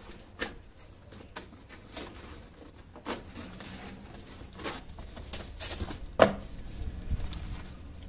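Cardboard box being torn apart and handled: irregular crackles and rips, the loudest about six seconds in.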